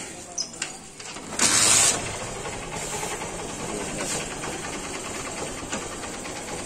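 A small engine idling steadily with a fine rapid ticking, after a brief loud rush of noise about a second and a half in.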